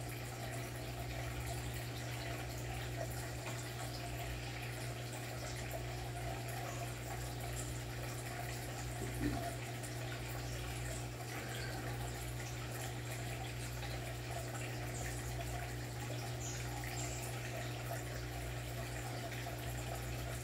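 Steady trickle of aquarium water over a constant low hum, with one brief soft knock about nine seconds in.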